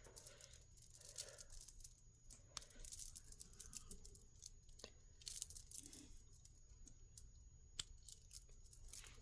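Faint scattered clicks and light rustling of a beaded costume-jewelry necklace being handled, its beads and clasp clicking.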